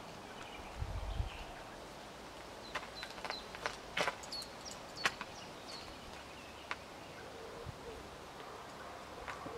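A horse's hooves stepping on gravel at a walk: a few irregular sharp clicks and crunches. A brief low rumble comes about a second in.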